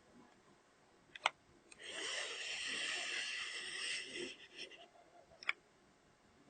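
Handheld i1 Pro spectrophotometer measuring a row of color patches. There is a sharp click about a second in, then a steady hissing scrape for about two and a half seconds as the instrument slides across the printed strip, then another sharp click.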